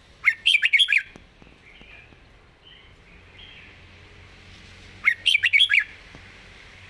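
Red-whiskered bulbul singing two short, quick warbling phrases of gliding whistled notes, about four seconds apart.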